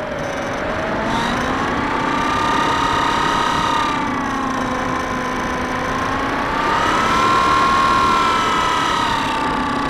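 Electric motor and propeller of a Bixler 2 RC plane whining steadily, heard from the onboard camera over rushing air. The pitch rises about a second in, sags in the middle and climbs again near the end as the throttle changes.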